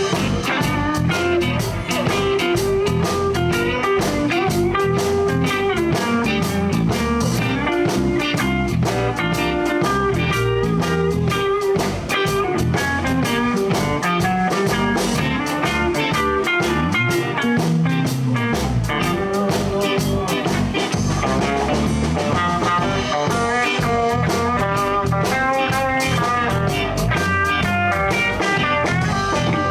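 Live blues band playing an instrumental break: an electric guitar takes a lead solo over bass and a drum kit.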